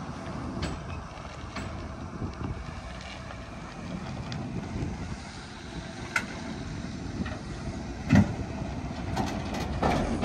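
Wind rumbling on the microphone, with irregular footsteps crunching on gravel and a few light knocks. A louder thump comes about eight seconds in.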